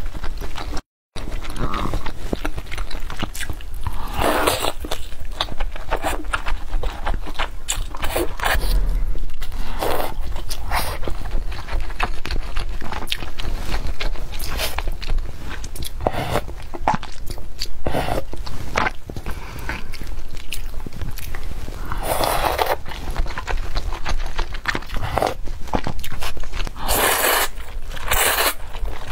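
Close-up eating sounds: wet chewing and smacking of sauce-soaked yuba (tofu skin) and noodles in spicy broth, with several louder slurps of noodles, one near the end. The sound drops out for a moment about a second in.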